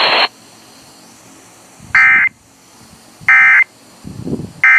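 An Emergency Alert System end-of-message code: three short, identical bursts of harsh two-tone digital warble, each about a third of a second long and about 1.4 s apart, marking the end of the severe thunderstorm warning. Just before them, a loud hiss of static cuts off right at the start. An unidentified lower, uneven sound comes in near the end.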